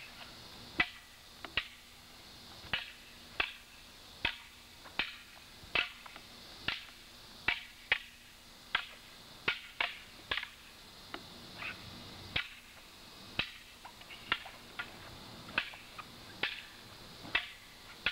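Two wooden bo staffs clacking against each other in a two-man staff drill: a steady run of sharp wooden strikes, about one to two a second, some coming in quick pairs.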